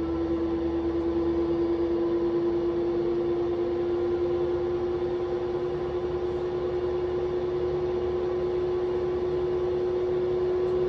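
Washing machine running with freshly replaced drum bearings: a steady motor hum with one strong tone that climbs very slowly in pitch as the drum spins.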